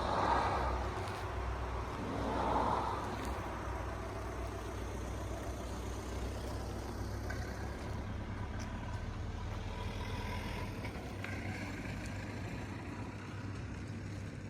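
A car engine running steadily with a low hum, with two short swells of louder noise in the first three seconds.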